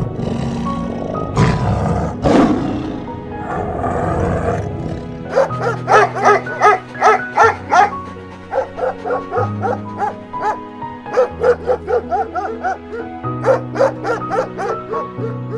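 Animal calls over soft background music: a rough growl or roar in the first few seconds, then runs of short, high yaps at about three a second.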